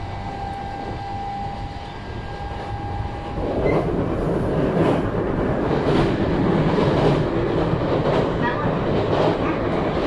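Running sound of an E531 series electric commuter train, heard inside the passenger car: a steady rumble of wheels on rail with a faint steady whine. The rumble grows louder about three and a half seconds in, and wheel clicks follow over the rails.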